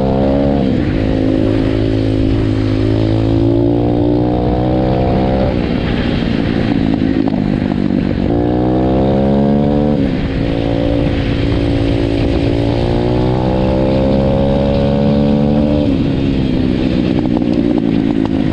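Single-cylinder four-stroke pit bike engine under way, heard from the rider's seat. The revs climb and then drop back sharply about five times, as the bike pulls through the gears.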